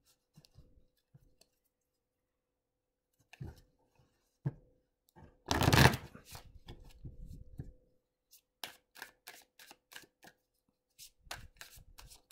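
Thoth tarot deck being shuffled by hand: a few soft rustles, one loud riffle just past the middle, then a run of short crisp card clicks about twice a second near the end.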